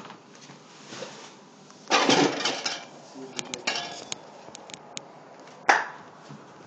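Gear and objects being handled: a loud rustle about two seconds in, a few light clicks, then a sharp knock near the end, the loudest sound.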